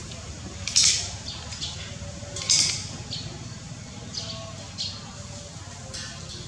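Short, high bird chirps from the surrounding trees, coming irregularly, with two louder ones about a second and two and a half seconds in, over a low steady background rumble.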